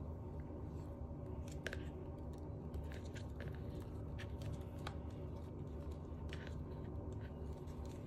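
Hard plastic parts of a Kärcher VCH 2 handheld vacuum, its dust container and filter unit, being handled and fitted together: scattered small clicks and rubs over a steady low hum.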